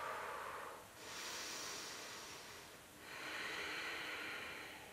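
A woman breathing slowly and audibly while holding a yoga lunge: long, even breaths of about two seconds each, one after another.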